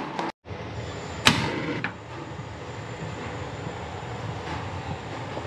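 Gas stove burner running with a steady hiss and rumble under a wok. There is a single sharp click about a second in.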